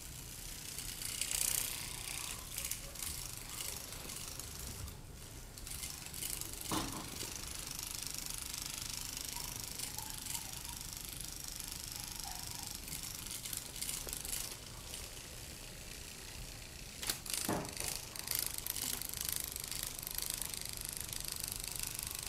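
Mechanism of a moving butterfly cat toy running, a steady whirr full of fast fine clicking, with a couple of louder knocks.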